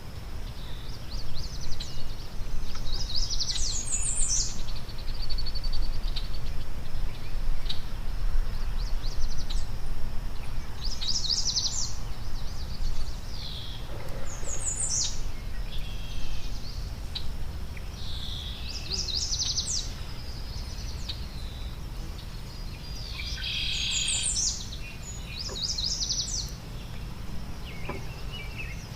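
Wild songbirds chirping and singing in short bouts every few seconds, with quick high notes sweeping downward. A steady low outdoor rumble runs underneath.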